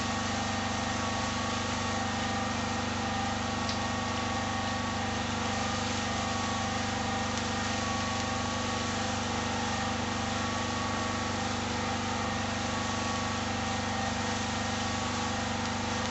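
Steady hum of a running motor, with several held tones over an even hiss, unchanged throughout.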